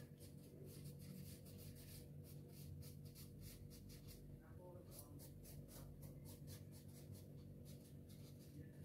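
Soft pastel stick scratching across paper in quick repeated shading strokes: a faint rhythmic scraping, several strokes a second.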